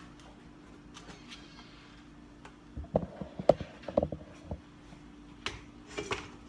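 A strainer and bowl knocking and clattering in a cluster of thuds about halfway through, as cooked diced potatoes are drained and tipped into a mixing bowl, with a few lighter clicks near the end. A faint steady hum sits underneath.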